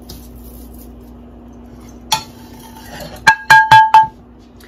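Wooden spatula knocking and stirring in a stainless steel frying pan of dry-roasting spices: one click about two seconds in, then four quick knocks in under a second, each leaving a short metallic ring from the pan.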